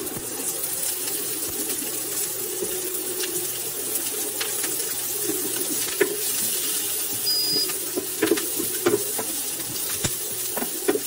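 Chopped onions sizzling steadily in a nonstick pan with very little oil, sweating out their juice. A wooden spoon stirs them and knocks against the pan in the second half, with a few sharp clicks.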